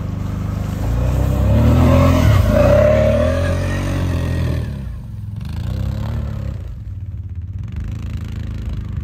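ATV (quad bike) engine revving as it pushes through deep slushy snow, its pitch rising and falling, loudest in the first few seconds, easing off about five seconds in and swelling again a second later.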